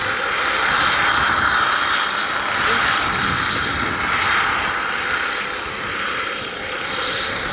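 Test drone in flight under full payload, a steady rotor and motor noise that swells and eases slightly.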